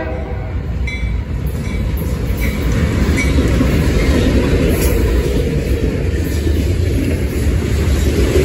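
BNSF diesel freight locomotives passing close by, engines running and wheels rumbling on the rails, followed by freight cars rolling past with occasional wheel clicks. The tail of a horn blast cuts off right at the start, and the sound grows louder about three seconds in as the locomotives go by.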